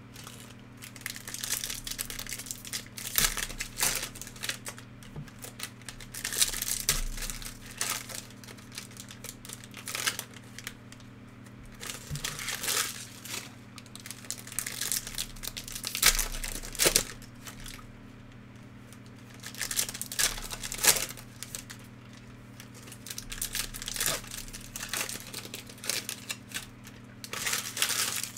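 Trading card pack wrappers crinkling and tearing as packs are ripped open and the cards handled. The rustling comes in clusters every few seconds over a steady low hum.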